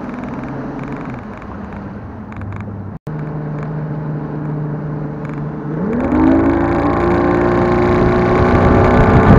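Bass boat's outboard motor running steadily, then throttling up about six seconds in, its pitch rising and leveling off louder as the boat picks up speed. The sound drops out for an instant about three seconds in.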